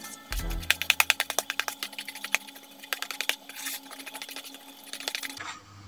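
Metal spoon stirring a thick, wet bait mixture in a plastic bowl, clicking and knocking against the bowl about six or seven times a second from about half a second in, then slower and fainter after about three seconds.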